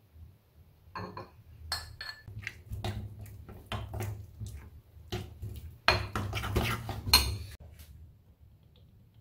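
A spoon clinking and scraping against a ceramic bowl as a thick chili seasoning paste is stirred. It comes as an irregular run of sharp clicks and scrapes, starting about a second in and dying away near the end.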